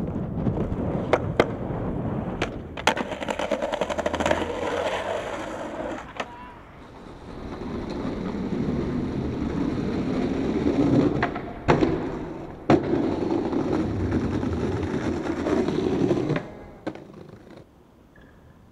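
Skateboard wheels rolling over concrete and brick paving, broken by sharp clacks of the board popping and landing. The rolling stops near the end.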